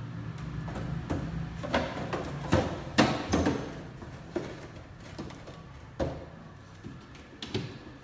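Plastic refrigerator door shelves and bins being handled, giving a series of sharp knocks and clatters, loudest and closest together about two to three and a half seconds in, then single knocks every second or so.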